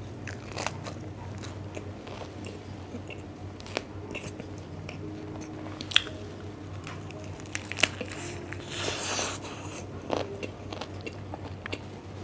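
Close-up chewing and biting of a lettuce wrap of grilled meat, with a string of sharp, crisp crunches and a longer crunching stretch about three quarters of the way through.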